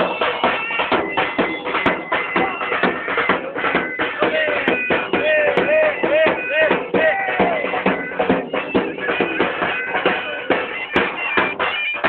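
Music led by a reedy, bagpipe-like wind-instrument melody with bending notes over a dense, continuous accompaniment.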